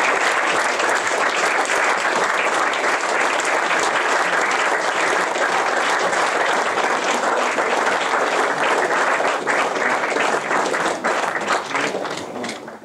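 Wedding guests applauding: dense, steady clapping from a large crowd, fading out near the end.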